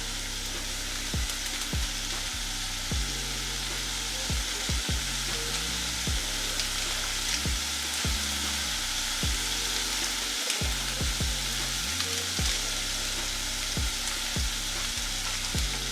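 Ground pork sizzling in a pot while tomato paste is stirred in, with a spoon scraping and knocking against the pot now and then.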